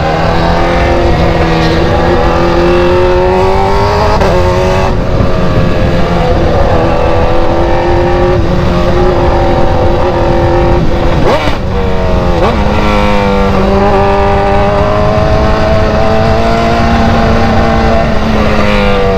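BMW engine with a very loud, open exhaust, pulled hard at high revs. The pitch holds or creeps up, dips briefly at gear changes about five and eleven seconds in, and falls away near the end.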